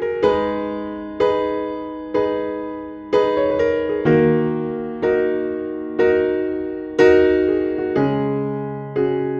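Background music: a slow electric piano tune, a note or chord struck about once a second and left to fade.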